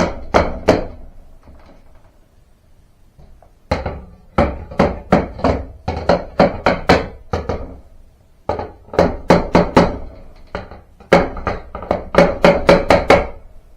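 Hammer blows knocking a part of a storm door frame into place, in several runs of quick strikes, about two to three a second.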